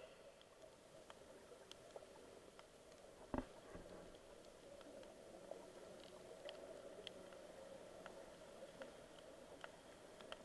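Faint underwater ambience over a coral reef, heard through an action camera's waterproof housing: a low hiss with scattered faint clicks. One short dull thump about a third of the way in.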